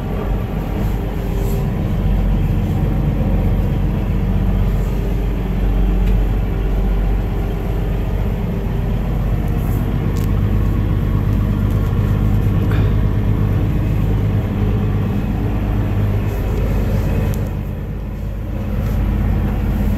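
Mercedes-Benz Unimog diesel engine running steadily as heard inside the cab while driving, a constant low drone with a few light knocks and rattles; the engine note drops briefly near the end.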